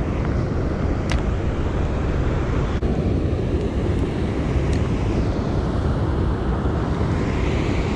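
Steady low rush of river water below a dam spillway, mixed with wind buffeting the microphone, with a few faint ticks.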